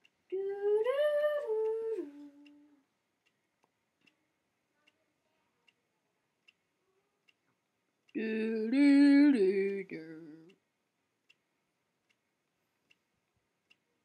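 Animatronic toy parrot giving two short electronic sung phrases about eight seconds apart, each a few held notes stepping up and down. Faint regular ticks about once a second between them.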